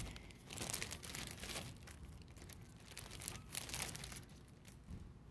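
Clear plastic sleeves crinkling and rustling as they are handled and set down, in a run of crinkles that come and go.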